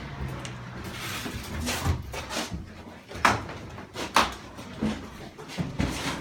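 Several sharp knocks and thuds of things being handled and set down in a small room, the two loudest about three and four seconds in.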